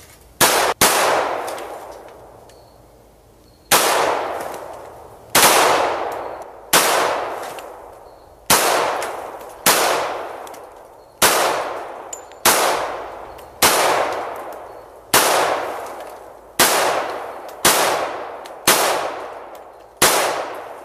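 Glock 21 Gen 4 pistol firing .45 ACP rounds: a steady string of shots, roughly one a second or a little slower, the first two close together. Each shot trails off in a long fading echo.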